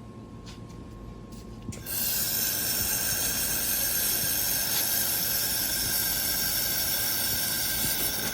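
Handheld laser welding machine welding a seam: it starts abruptly about two seconds in with a loud, steady hiss carrying high whining tones, runs evenly for about six seconds and stops near the end.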